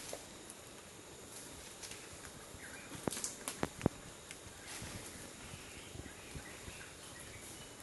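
Quiet rainforest ambience with a faint steady high hiss, broken a little after three seconds in by a quick run of four or five sharp clicks or snaps.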